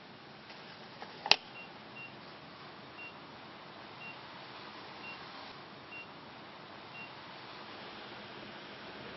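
Fuel pump at a gas station: a sharp click about a second in, then a string of short high beeps, roughly one a second.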